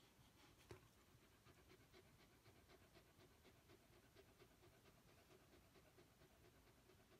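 Pembroke Welsh Corgi panting faintly in quick, regular breaths, several a second: labour panting as her contractions grow stronger. A single sharp click near the start.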